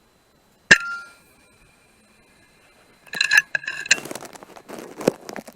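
A single shot from an FX Maverick Compact .22 PCP air rifle, a sharp crack with a brief metallic ring, about a second in. From about 3 seconds on comes a cluster of metallic clicks and rattling.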